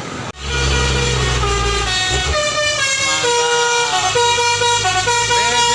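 A tour bus's telolet basuri musical air horn playing a tune of stepped notes over the bus's running engine. The sound cuts in abruptly just after the start, the engine first and the horn notes from about a second and a half in.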